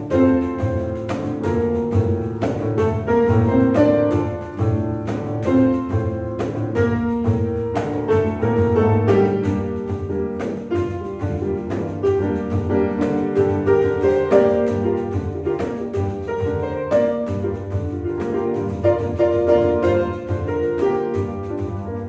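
Grand piano playing a continuous passage of chords and moving notes, struck in quick succession.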